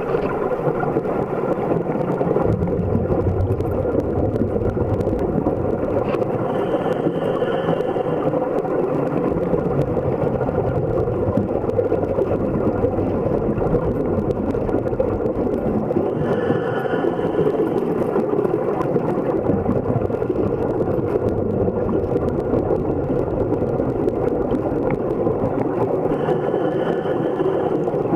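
Steady, muffled rumble of water heard through an underwater camera housing. A bubbling hiss of escaping air comes three times, about ten seconds apart, each lasting a couple of seconds.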